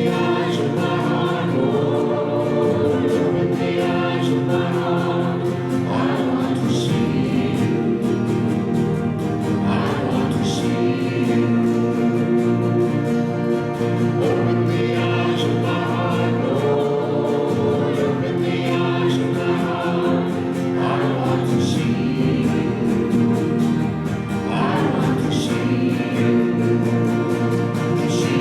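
A group of voices singing a hymn together in held, slow-moving chords.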